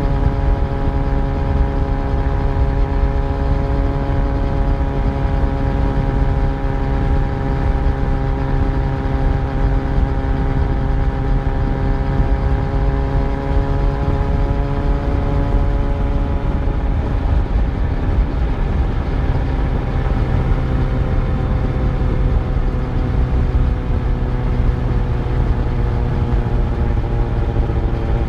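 Yamaha FZ1's inline-four engine running steadily at cruising speed under heavy wind rumble, its pitch easing gradually downward over the second half as the bike slows.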